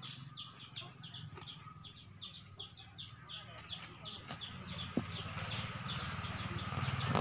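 A small bird chirping repeatedly, about four chirps a second, fading out after about four seconds. Later, rustling and light snips from avocado leaves being handled and stripped grow louder toward the end.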